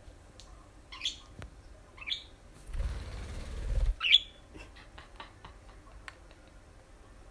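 Pet budgerigar giving three short, high chirps a second or two apart, with a muffled low rustle about a second long in the middle, followed by a run of light clicks.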